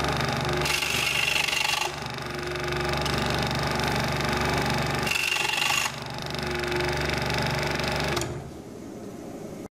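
Scroll saw running with a steady reciprocating hum, its blade cutting twice through a 3/16-inch wooden dowel rod, each cut about a second long and louder and harsher than the idle running. The running sound stops near the end.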